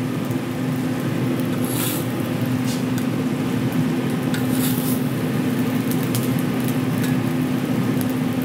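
Steady hum and hiss of a commercial kitchen with food sizzling on a flat-top griddle. A metal spatula scrapes and clinks a couple of times, around two seconds in and again around four seconds in, as grilled polenta slices are lifted onto a platter.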